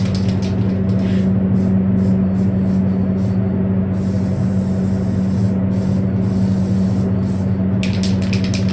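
Aerosol can of adhesion promoter spraying in one continuous hiss for about four seconds in the middle, with short clicks before and after, over a loud steady hum from the spray booth.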